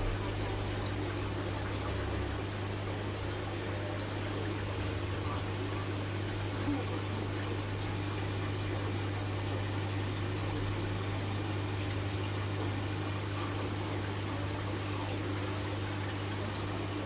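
Aquarium water trickling steadily over a constant low hum, with one brief knock about six and a half seconds in.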